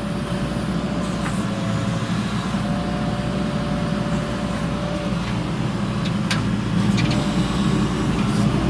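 JCB backhoe loader's diesel engine running steadily while working, with a faint steady whine over the drone. A few sharp knocks come about six to seven seconds in, and the engine gets a little louder near the end.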